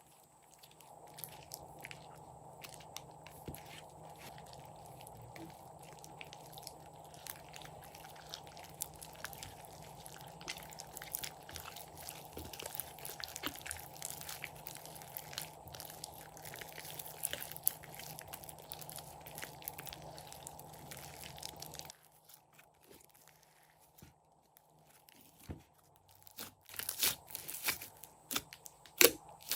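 Crunchy slime squeezed and kneaded by hand, giving a dense, fine crackling. It goes quieter about two-thirds of the way through, then comes back as a few louder, sharper crunches near the end.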